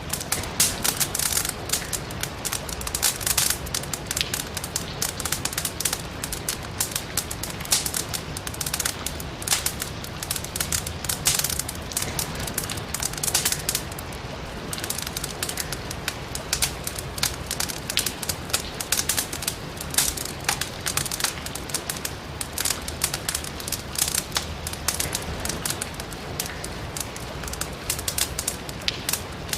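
Wood fire burning in a fireplace, the logs crackling and snapping in many irregular sharp pops over a steady hiss of rain.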